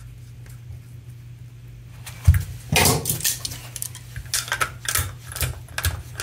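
Slip-joint pliers handled and gripping a small paintball-tank quick-connect fitting to tighten it into a metal oxygen-regulator body. A thump about two seconds in and a brief scrape just after, then a run of small irregular metal clicks and clinks near the end, over a faint low hum.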